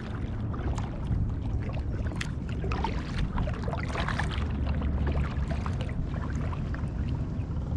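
Kayak paddle dipping and splashing in the water, stroke after stroke, as the kayak is paddled along, over a steady low rumble.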